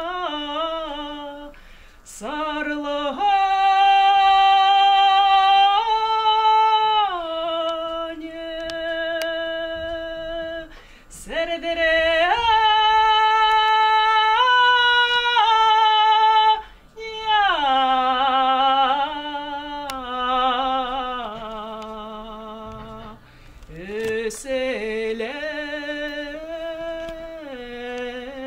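A woman singing a Kalmyk long-drawn folk song unaccompanied, holding long notes and gliding between them with wavering ornaments, in phrases broken by short pauses for breath.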